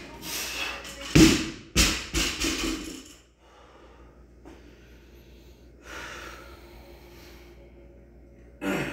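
A 135-pound barbell loaded with 45-pound plates is dropped from the front rack onto the floor: two heavy impacts a little over half a second apart, then a brief rattle as it settles. After that, hard breathing.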